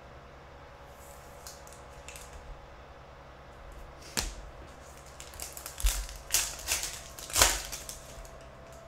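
Handling noises at a table: a sharp click about four seconds in, then the foil wrapper of a Donruss Optic card pack crinkling and crackling as it is torn open, loudest near the end.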